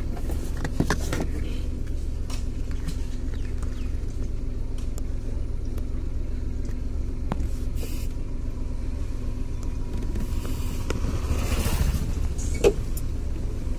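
Vehicle engine running, heard from inside the cab as a steady low rumble with a constant hum. There are a few scattered clicks and a short rush of noise about eleven seconds in.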